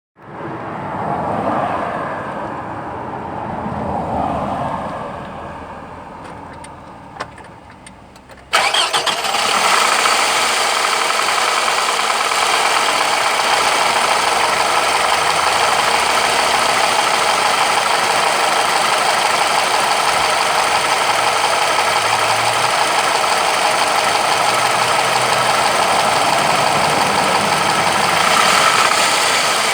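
Toyota 1AZ-FE 2.0-litre four-cylinder engine running with a knock. For the first eight seconds it is quieter and uneven, then it jumps abruptly to a loud, steady running sound, as if heard much closer.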